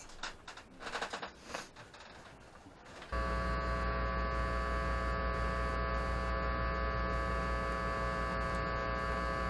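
A few soft knocks and clicks, then about three seconds in a steady electrical mains hum cuts in abruptly: a low buzz with a stack of even overtones that holds unchanged.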